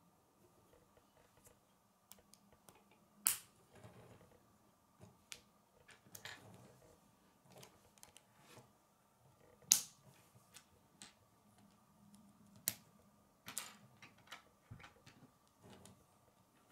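K'nex plastic rods and connectors clicking and snapping together as they are fitted by hand: many small clicks, with a sharp snap about three seconds in, a louder one near ten seconds, and a few more later. A faint steady hum lies underneath.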